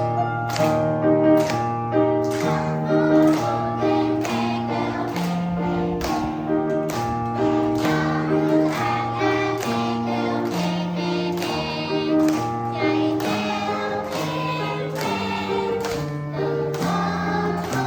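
A group of voices singing in unison over an electronic keyboard accompaniment with sustained chords and a steady drum beat.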